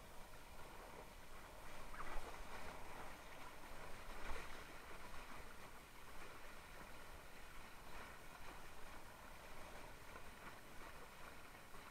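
Water rushing and splashing around the bow of a Mistral Superlight windsurf board as it sails through light chop, with louder splashes about two and four seconds in.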